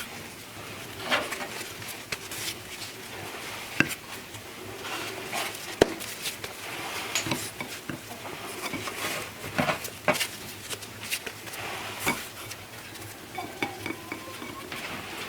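Cooking utensils and cookware clinking, knocking and scraping in irregular, scattered strokes, with the sharpest knock about six seconds in.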